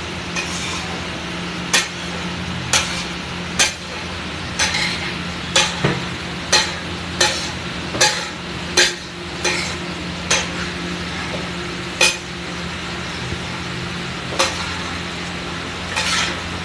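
Metal spatula scraping and striking a large flat iron griddle (tawa) as pav bhaji is stirred and mashed on it: sharp metallic clinks roughly once a second, irregular and pausing near the end. Under them runs a steady hiss and a low hum.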